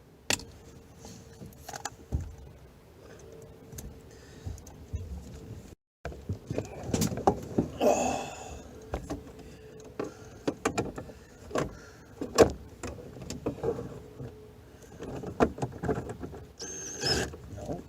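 Irregular clicks, knocks and rattles of hand tools and metal and plastic parts being handled while working under a truck's dashboard, with a brief scrape about eight seconds in.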